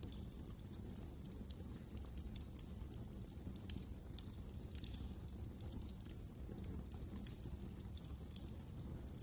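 Wood fire in a fireplace crackling: irregular sharp snaps and pops over a steady low rumble.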